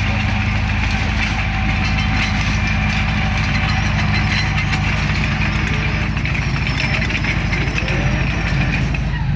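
Bulldozer's heavy diesel engine running steadily at an even low pitch, with a fine rattle over it.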